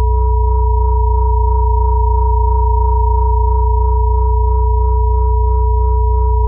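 Synthesized pure sine tones held steady without change: a deep hum near 60 Hz layered with a middle tone near 432 Hz and a higher tone near 963 Hz, the crown-chakra 'healing frequency' drone.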